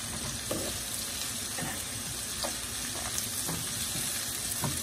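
Sliced onions sizzling in oil in a nonstick frying pan, stirred with a metal spoon that scrapes and clicks against the pan every so often over a steady hiss.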